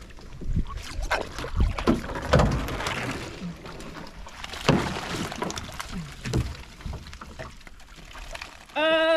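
Water sloshing and splashing around a small fishing boat, with irregular knocks and thumps. A loud, steady held note starts near the end.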